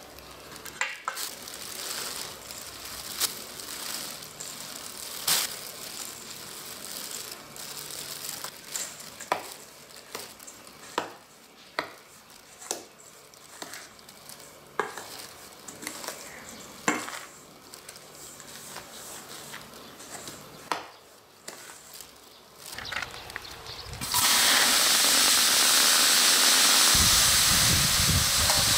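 Metal ladle scraping and clinking against a stainless steel bowl as dry flour and chili powder are stirred, with a sharp clink every second or two. About 24 seconds in, a loud, steady sizzle starts: water sea squirts frying in a hot cast-iron cauldron.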